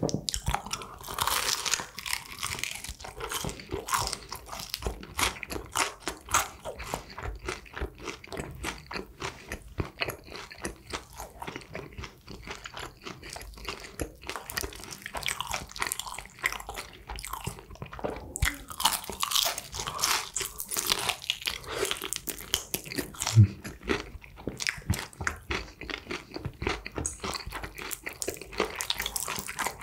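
Close-miked crunching bites and chewing of crispy honey-glazed fried chicken wings and drumsticks, a dense run of crackly crunches with wet chewing in between. One louder low thud about three-quarters of the way through.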